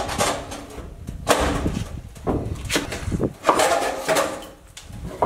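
Knocks, clunks and scraping of a long wooden board being handled, lifted and swung overhead, with a few sharp knocks among the clatter.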